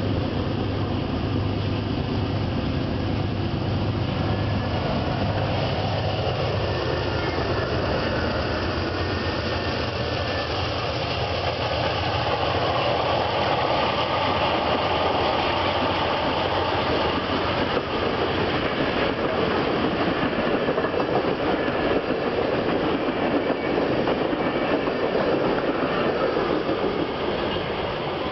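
Amtrak passenger train of Superliner bilevel cars, hauled by GE P42DC diesel locomotives, passing close by. A steady low engine hum is heard for the first several seconds, then the continuous rumble and rattle of the cars' wheels rolling over the rails.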